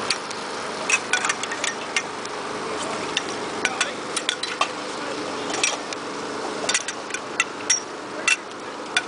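Sectional aluminium flag-pole tubes knocking and clinking together as they are pulled apart and folded up: a quick, irregular series of sharp metallic clicks.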